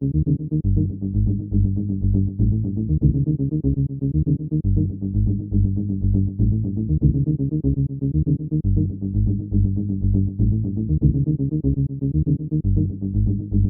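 Background electronic music with a steady beat and a deep bass line.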